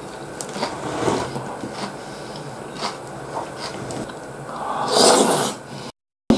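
Mukbang eating sounds: a metal spoon scraping and clicking against a ceramic bowl of soft omelette in thick sauce, with mouth noises of eating, and one louder breathy noise about five seconds in. The sound drops out for a moment near the end.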